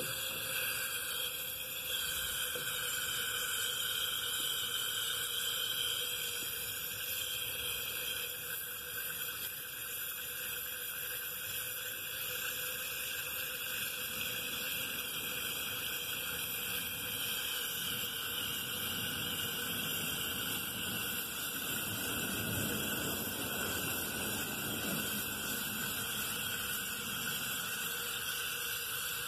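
Butane canister held upside down with its valve pin pressed in, so liquid butane sprays out of the valve in a steady hiss.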